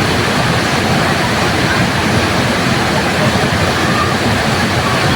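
Waterfall pouring steadily, an even, unbroken rush of falling water.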